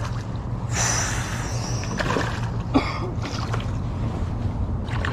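Water splashing as a hooked peacock bass thrashes at the surface while it is landed, over a steady low hum, with the main splashing about a second in and a shorter splash near the middle.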